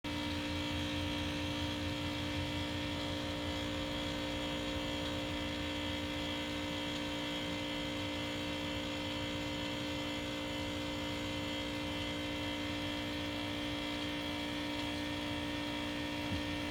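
A steady machine hum made of several unchanging tones, a low drone the strongest, with no change throughout.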